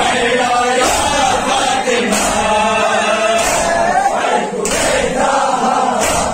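A crowd of men chanting a noha in unison, with loud, rhythmic chest-beating slaps (matam) from the whole crowd in time with it, about one every second and a quarter.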